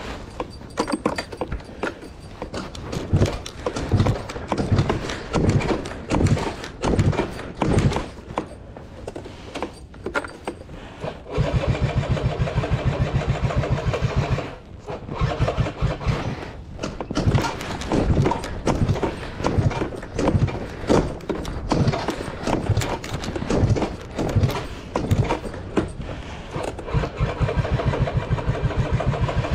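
Yamaha JOG Aprio Type II's small two-stroke engine being cranked over and over, sputtering in uneven bursts without catching, with two longer steady stretches of cranking, one near the middle and one near the end. This is the hard starting the owner is chasing.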